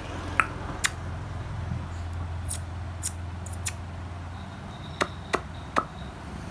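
Scattered short, sharp clicks, about eight of them at irregular intervals, over a low steady hum.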